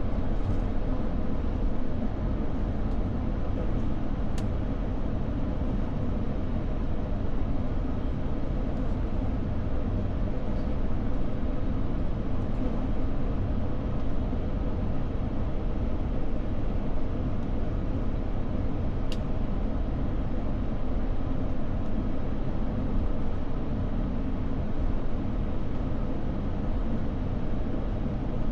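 Steady cabin noise inside a jet airliner on the ground before takeoff: an even low rumble and hum from the idling engines and the air system. Two faint ticks, about 4 and 19 seconds in.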